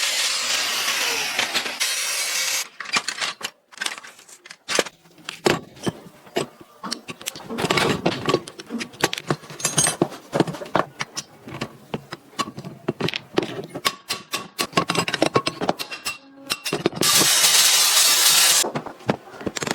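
A power tool working wood runs for the first couple of seconds, then stops. Irregular knocks and clatter of workshop handling follow, and the power tool runs again briefly near the end.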